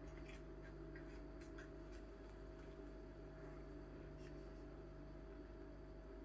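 Faint, scattered clicks and soft handling noises, most of them in the first two seconds, from hands pushing chopped red onion into whole fish in a bowl. A steady low electrical hum of room tone runs under them.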